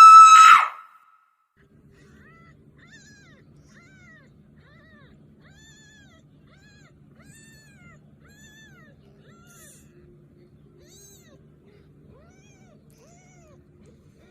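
A loud, high, steady whistle-like squeal cuts off within the first second. After a short silence a kitten mews faintly over and over, short cries that rise and fall in pitch, over a low steady hum.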